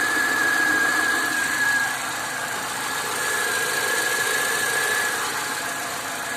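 Car engine running with a steady high-pitched whistle over it, which the owner puts down to the crankshaft position sensor. The whistle drops away about two seconds in and returns a second later.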